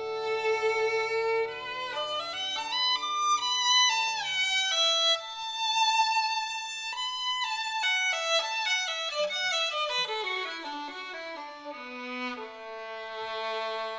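Violin playing a melody: a held note, phrases climbing higher, then a run falling away that settles on a long low note near the end.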